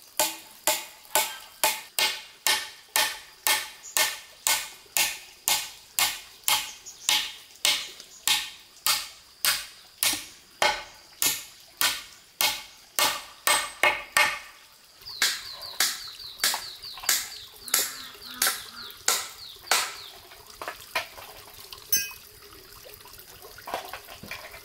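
A kitchen utensil striking over and over in food preparation, an even two strokes or so a second for about fifteen seconds, then slower and more irregular.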